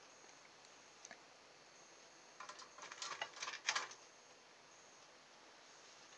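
Small handling noises of wires being worked at the plastic switch housing of an opened cordless drill while desoldering: a faint click about a second in, then a second and a half of small clicks and rustles about two and a half seconds in.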